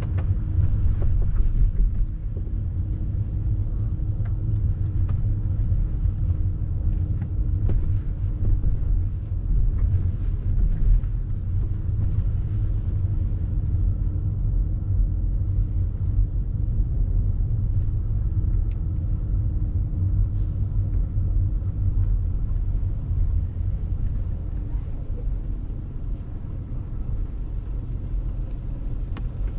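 Low, continuous rumble of road traffic on a city street, with a steady engine hum that stops about twenty-two seconds in.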